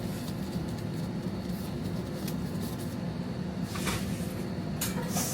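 Steady background hum of a restaurant kitchen, with a few brief soft handling noises near the end as the sealed calzone dough is moved.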